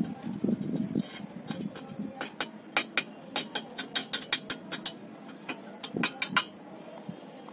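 Electrode of a homemade salt-water welder striking steel angle iron: a run of irregular sharp snaps and crackles as the arc sparks on and off, stopping about six and a half seconds in.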